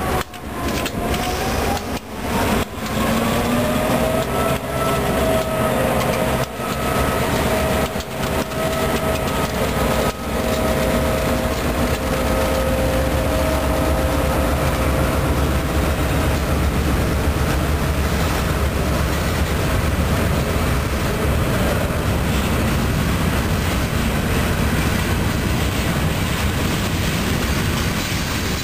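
Diesel freight locomotives pulling a train through a grade crossing. Over the first seconds an engine whine rises in pitch and holds, then fades into the steady low rumble and clatter of freight cars rolling past.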